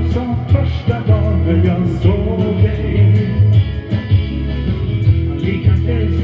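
Rock band playing: electric guitars over bass and a steady drum beat, with a melody line sliding up and down in pitch.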